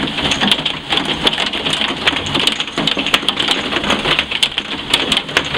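Heavy rain pouring down, a steady loud hiss thick with sharp clicks of drops striking hard surfaces.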